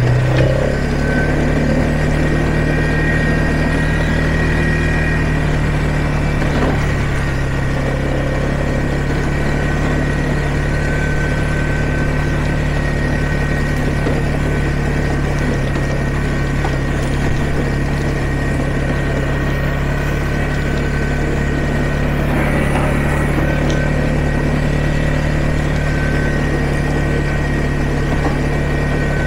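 ATV engine running at a steady pace while the ATV is ridden along a dirt trail, holding an even drone.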